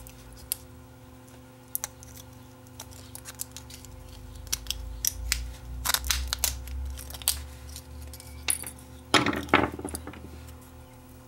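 Pliers prying and bending the metal shield of a small circuit board: scattered sharp clicks, snaps and metallic clinks, with a louder cluster about nine seconds in, over a faint steady hum.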